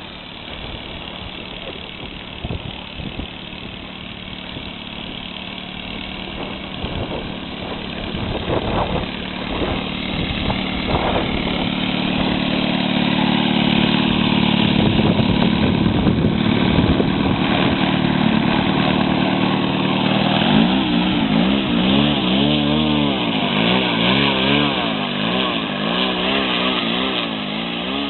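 Saito 57 four-stroke gasoline engine of a radio-controlled scale Cessna 150 running as the model taxis on grass. It grows louder as the model comes close, and in the last third its pitch rises and falls again and again.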